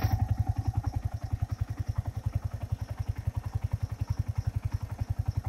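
Yamaha YZF-R15 V3's 155 cc single-cylinder four-stroke engine idling steadily, its exhaust beating in even pulses at about a dozen a second.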